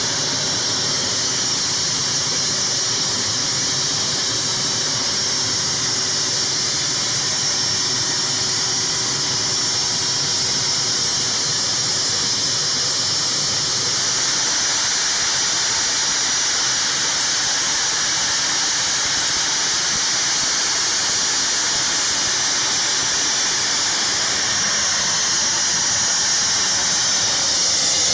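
A-10 Thunderbolt II's TF34 turbofan engines running at idle: a steady high-pitched whine over a rushing hiss.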